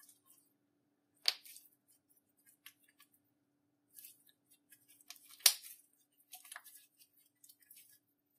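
Small clicks and crackles of slime and makeup being handled, with two sharp clicks, one about a second in and a louder one past halfway.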